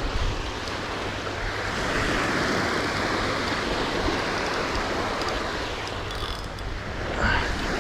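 Surf washing onto the beach in a steady wash of noise, with some wind on the microphone.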